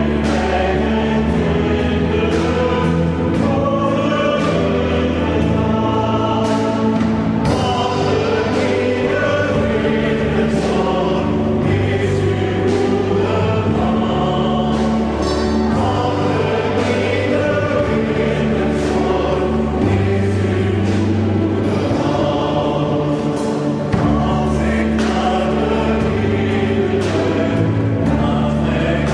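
A mixed choir of adults and young people singing a church song together, over held low notes that change every couple of seconds.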